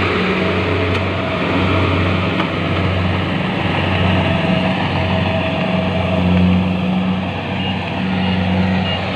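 Kubota DC-70 Plus combine harvester running steadily while harvesting rice: a steady diesel engine hum under the broad clatter of the cutting and threshing machinery. Near the end a short high beep repeats about twice a second.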